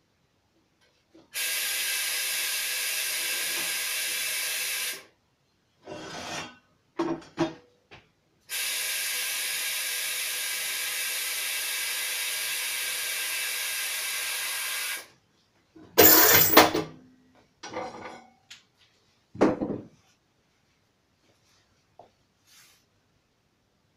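Compressed air hissing steadily through a pneumatic shoe-sole press's air unit as its switch feeds pressure or vacuum to the diaphragm: one hiss of about four seconds, a few clicks, then a second hiss of about six seconds that cuts off abruptly. Loud metallic clunks and rattles follow as the press's clamp arm is released and the shoe is taken out.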